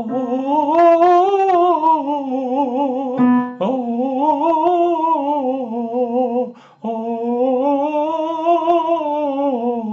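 Man singing a vocal exercise in a light falsetto with no chest voice, in three phrases that each slide up and back down with vibrato. A single piano note sounds briefly before the second phrase. This is the sound of the light chest, no chest vocal type: no cord adduction, complete falsetto.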